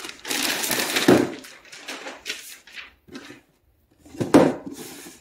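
A plastic mailer bag crinkling and rustling for about a second, then light handling knocks of cardboard shoe boxes on a wooden floor, the sharpest about four seconds in.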